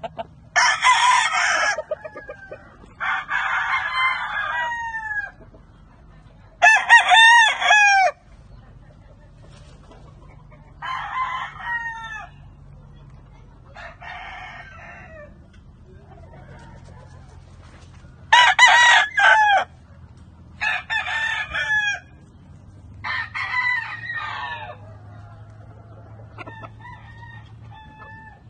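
Several gamecock roosters crowing one after another, about nine crows in all, each lasting one to two seconds with a few seconds between them.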